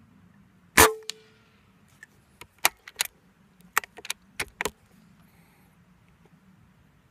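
A .25-calibre Benjamin Marauder pre-charged pneumatic air rifle fires once: a sharp crack with a brief ringing tone. About a second later come some ten quick metallic clicks, the bolt being worked to chamber the next pellet.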